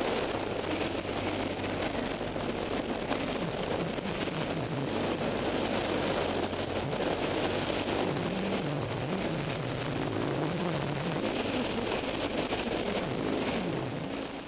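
BMW R1100GS boxer-twin motorcycle engine running while riding a dirt road, its pitch rising and falling with the throttle, under steady wind rush on the microphone.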